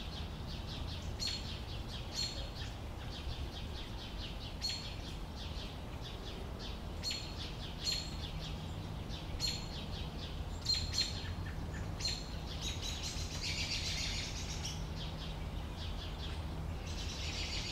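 A bird calling outdoors: short, high chirps repeated every second or two, with a denser burst of twittering a little past the middle, over a steady low hum.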